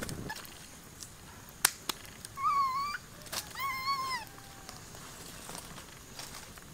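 A puppy whines twice, two short high calls about a second apart, the second rising and falling. Just before them come two sharp cracks, likely from the wood fire.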